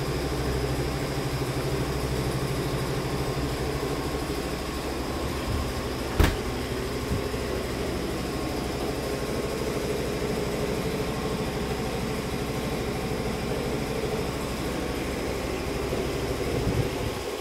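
Steady low drone of an idling engine, with a single sharp knock about six seconds in.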